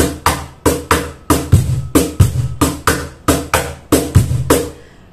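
Cajon played with bare hands in a fast groove: deep bass strokes from the centre of the front plate alternate with sharper snare slaps near the top edges, about three strokes a second, with a short pause near the end.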